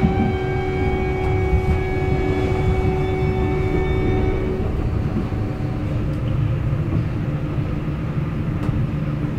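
Hamburg U-Bahn DT4 electric train running, heard from inside the carriage: a steady whine from the traction motors over the low rumble of wheels on the track. The whine stops about halfway through as the train coasts, and the rumble carries on.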